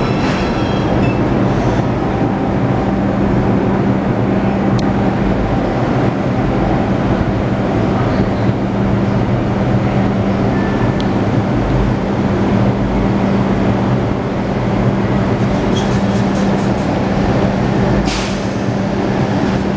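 R142-family subway train running past on elevated track: a steady rumble of wheels on rails with a steady low hum underneath. A short hiss comes near the end.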